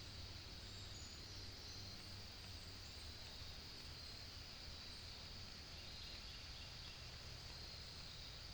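Faint forest ambience: a steady high-pitched insect drone over a low rumble, with a few faint bird chirps near the start.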